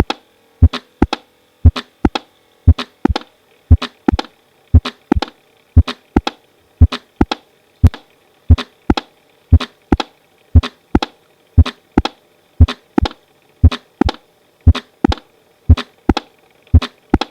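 Heart sounds of a mechanical aortic valve replacement: sharp, crisp prosthetic valve clicks in pairs a little under half a second apart, the first of each pair louder. The pairs repeat about once a second, a steady heart rate of roughly 60 beats a minute.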